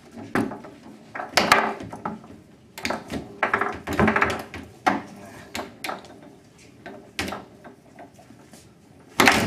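Foosball game in play: irregular sharp knocks as the ball is struck by the plastic players and hits the table walls, with the rods clacking, about one every second. The loudest knock comes near the end.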